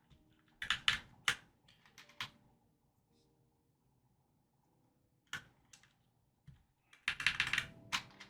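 Plastic keycaps clicking and clacking as they are handled and pressed onto a keyboard's switches: a quick group of clicks about a second in, a pause, a few single clicks, then a dense run of clicks near the end.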